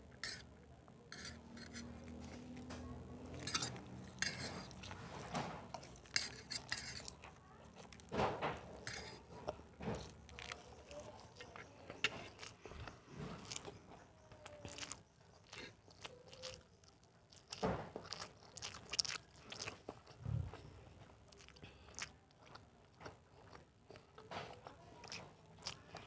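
Metal spoon and fork clinking and scraping on a plastic plate while food is scooped up, with chewing in between: scattered short clicks and taps throughout.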